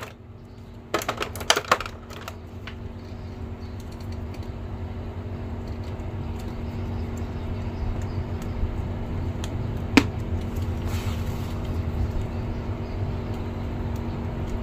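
Small plastic action figures and a clear plastic blister tray being handled: scattered clicks and taps, a cluster in the first two seconds and a single sharp one about ten seconds in, over a steady low hum.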